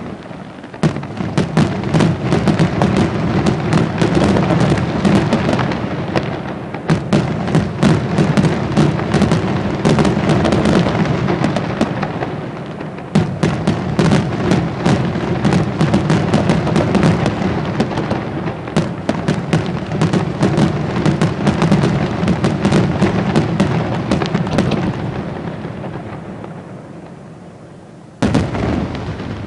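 Aerial fireworks display: a dense, continuous barrage of rapid bangs and pops from bursting shells, many a second. It thins out and fades over the last few seconds, then a fresh loud burst sets in just before the end.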